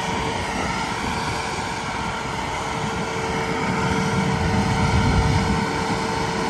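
Steady running of a motor or engine: a constant hum holding one tone, over a low rumble that swells about four to five seconds in.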